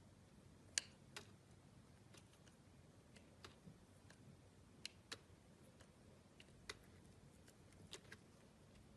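Faint, irregular small clicks and light taps over a quiet hiss, the sharpest about a second in, with no steady rhythm.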